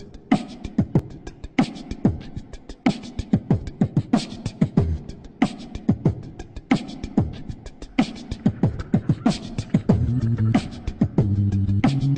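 Background music with a steady drum beat: deep, sharp kick hits about every second and a quarter with quicker light ticks between them. A deep bass line comes in near the end.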